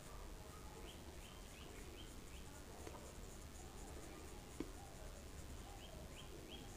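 Faint strokes of a small paintbrush spreading poster paint on paper. Small birds chirp in short rising calls in the background, in groups about a second in and again near the end. A single sharp click comes about four and a half seconds in.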